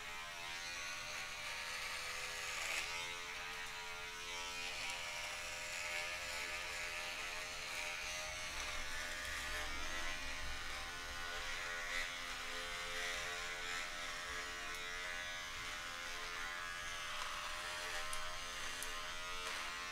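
Handheld electric beard trimmer buzzing steadily as it is run over the stubble on the neck and jaw, its tone changing a little now and then.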